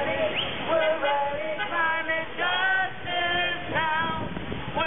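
A group of voices singing a chant together, with long held notes.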